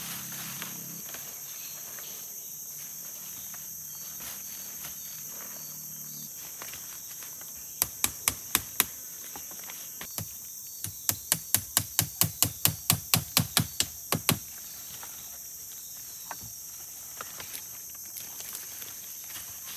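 Steady high-pitched insect chorus of tropical forest. About eight seconds in come five sharp knocks, then from about eleven to fourteen seconds in a regular run of about thirteen strikes, roughly four a second, the loudest sounds here.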